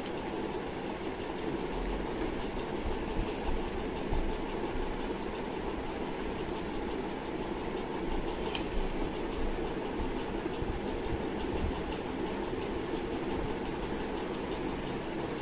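Steady motor-like hum, like a fan or other running appliance, with one short click about eight and a half seconds in.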